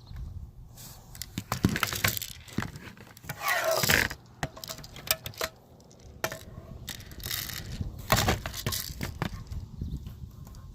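Clicks and light metallic clinks from a BB gun being handled, with louder noisy bursts about three and a half seconds in and again near eight seconds.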